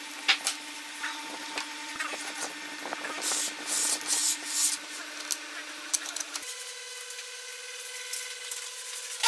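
Wooden jig parts being handled and slid against a wooden guide rail: irregular scraping and rubbing with small knocks and clicks, busiest around the middle. A faint steady tone runs underneath and jumps higher about two thirds of the way in.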